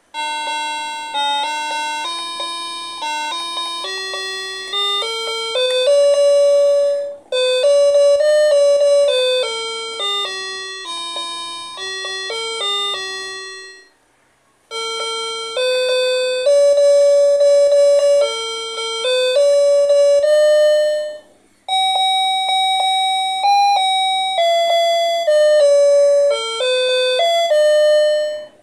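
A Music Fairy MQ-3700 37-key toy electronic keyboard is played by hand through its small built-in speaker: a simple single-note melody with no bass. The tune comes in phrases. It breaks briefly about a quarter of the way in, falls silent for under a second about halfway, and pauses again about three quarters through.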